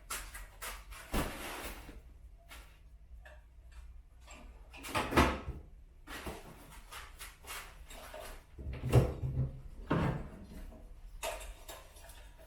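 Irregular knocks, clicks and rustling handling noises, with louder bumps about a second in, around five seconds in, and again around nine to ten seconds in.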